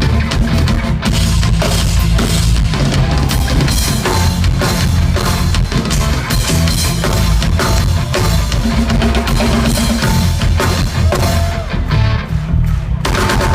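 Loud live concert music with a heavy drum kit beat and bass, heard through a crowd-recorded phone or camera microphone.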